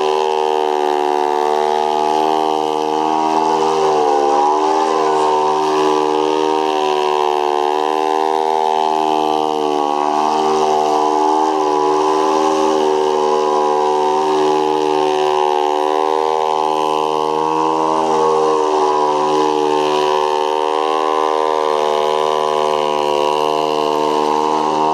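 Giant-scale Extra 300 RC plane's gasoline engine and propeller running steadily at high power, as needed to hold it in a hover. Small throttle changes make the pitch waver, with a brief dip about four seconds in.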